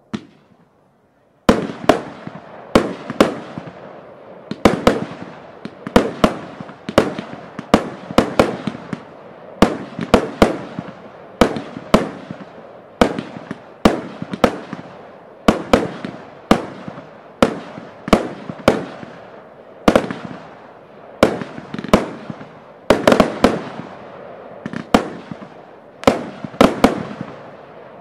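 An Original Fireworks 'Festival' fireworks cake firing. One shot comes right at the start, then after a short pause a long run of sharp bangs at about one to two a second, each fading away, through to near the end.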